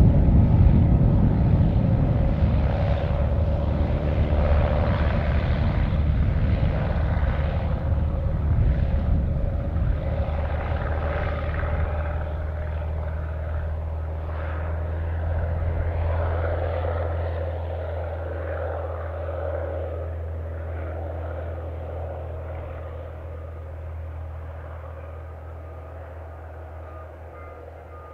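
Aircraft engine noise, loudest at the start and slowly fading away, over a steady low hum.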